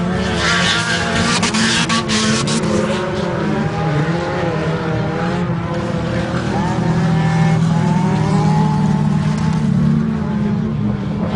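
Several small race cars of up to 1500 cc running hard on a dirt track, their engines revving up and down as they power around the course. A stretch of rough noise with sharp clicks comes in the first few seconds.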